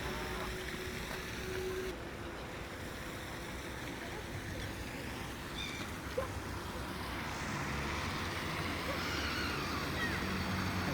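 Steady outdoor background rumble by open water, with a few faint, brief bird chirps scattered through it.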